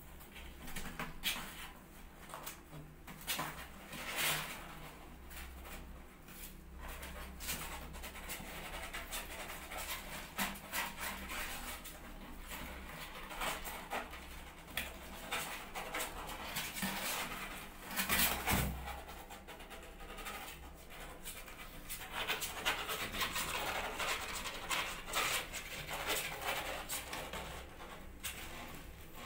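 Kittens' claws scratching and scrabbling on cardboard box walls as they climb, with irregular rustles and clicks and a louder thump about two-thirds of the way through.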